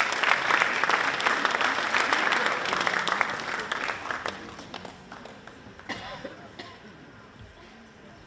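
Audience applauding: many hands clapping, loudest for the first few seconds, then dying away to a few scattered claps.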